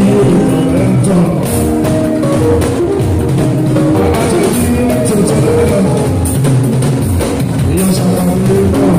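Live Fuji band music: drums and percussion keep a steady beat under held instrumental notes.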